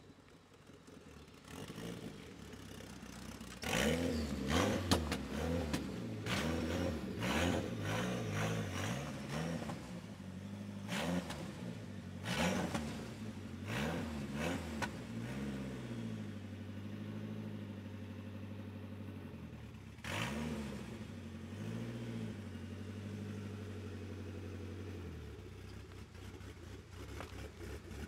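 Nissan SR20DET 2.0-litre turbocharged four-cylinder engine blipped repeatedly from idle, each rev rising and falling back, with a rush of noise on the sharpest blips before it settles to a steady idle. The owner says the turbo is bad.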